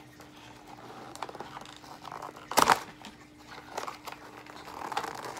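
Cardboard and plastic toy packaging being handled and pried open, rustling and crinkling with scattered small clicks and one louder crackle about two and a half seconds in.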